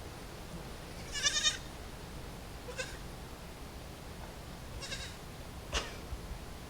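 A wavering, bleating animal call about a second in, followed by two shorter, fainter calls, with a sharp click near the end.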